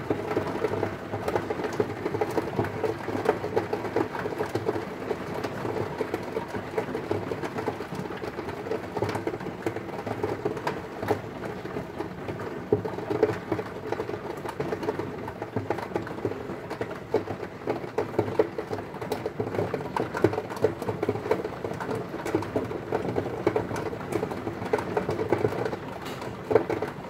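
Heavy rain beating on a window, a dense, steady patter of drops.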